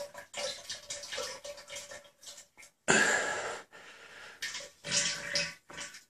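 A loose bowel movement into a toilet bowl: stool and gas splashing into the water in irregular bursts with short pauses, the loudest about three seconds in. It is diarrhea brought on by the laxative effect of sugar-free gummy bears.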